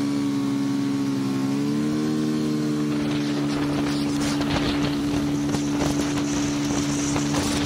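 Motorcycle engine pulling away from a stop and accelerating, holding a steady pitch as road speed climbs, with wind noise on the camera building as the bike speeds up.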